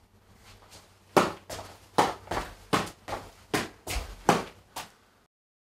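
Footbag being juggled with toe kicks off the top of the foot: a run of short, soft thuds, about three a second, that stops abruptly near the end.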